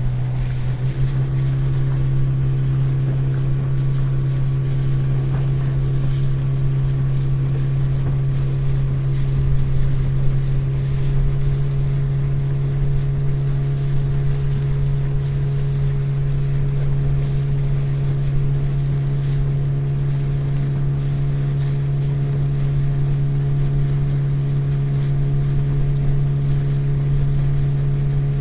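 Motorboat engine running steadily under way, a constant drone with higher tones joining about a second in, over the rush of water against the hull and wind.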